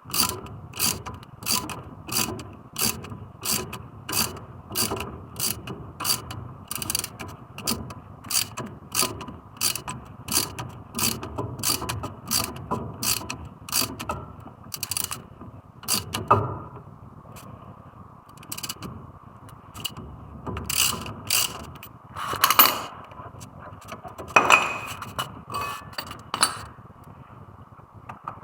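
A hand ratchet wrench clicking steadily, about three clicks a second, for roughly the first half, then stopping and starting with scattered metallic clicks and a few louder knocks of tools.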